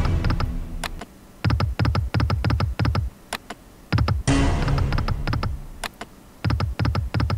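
Sound effects from an EGT online slot game: rapid runs of clicks as the reels stop on each spin, repeated spin after spin. A short ringing electronic jingle plays at the start and again about four seconds in.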